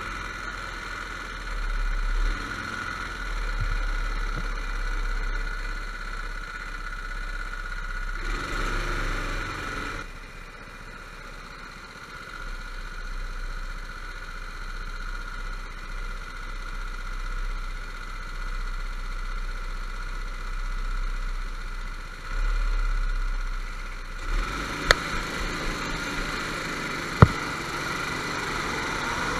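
Go-kart engines droning steadily, swelling louder twice, with a low rumble underneath and two sharp clicks near the end.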